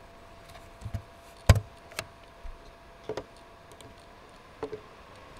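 Scattered computer keyboard keystrokes and mouse clicks, about six separate clicks with the loudest about a second and a half in.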